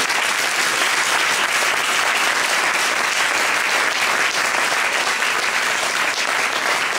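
Crowd applauding: many hands clapping steadily together.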